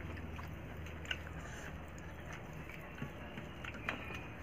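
People eating rice by hand from steel plates: soft chewing and a few light clicks of fingers and food against the metal, about a second in and near the end, over a steady low hum.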